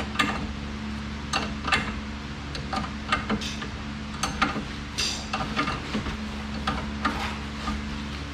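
Irregular metallic clicks and clinks of hand tools on the strut bolts of a car's rear suspension, a few every second, over a steady low hum.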